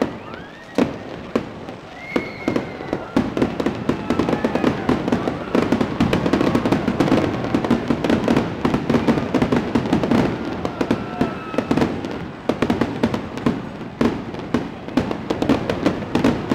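Fireworks going off in a dense barrage of sharp bangs and crackles, building up after the first few seconds, with a few whistling rockets near the start. Music plays underneath.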